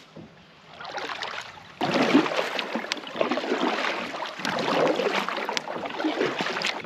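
A Bonafide RVR 119 fishing kayak being paddled through shallow river water, with the paddle blades splashing in and out and water washing along the hull. There is one sharp knock at the start, and the splashing grows louder about two seconds in.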